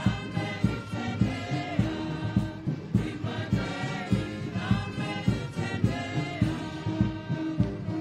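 A choir singing with a steady drum beat.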